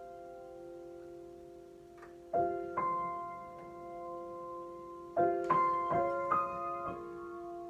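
Slow, unaccompanied piano improvisation. A chord rings on and fades, a new chord is struck about two and a half seconds in, and several more notes are struck one after another about five seconds in, each left to ring.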